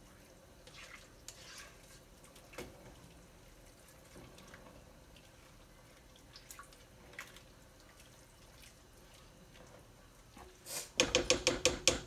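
A spoon stirring thick lentil stew in a pot: faint, scattered scrapes and soft liquid sloshing. About eleven seconds in, a quick run of sharp, ringing metallic clicks starts and is the loudest sound.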